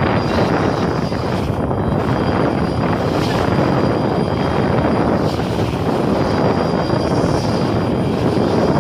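A boat's engine running steadily while under way, mixed with water rushing and splashing along the hull.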